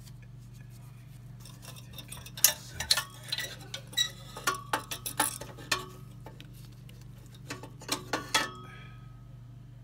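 Metallic clicks, clinks and light knocks as burner parts are handled and fitted inside a Riello oil burner's housing, coming in quick irregular clusters from about two seconds in to six seconds in and again briefly near eight seconds, over a steady low hum.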